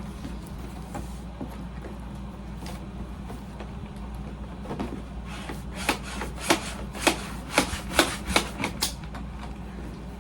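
Air conditioner humming steadily under light handling of a cardboard toy box. About six seconds in comes a quick run of about eight sharp knocks and clicks from working the packaging, over roughly three seconds.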